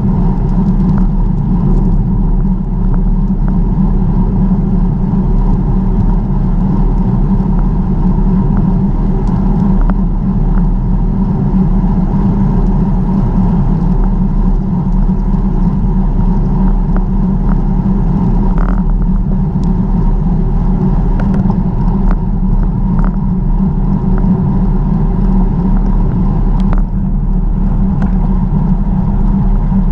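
Steady rumble of wind and tyre noise from a camera riding along on a bicycle, with a few faint clicks and ticks.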